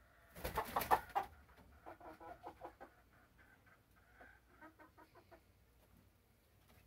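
Game chickens clucking: a loud burst of about a second near the start, then a run of short, quick clucks.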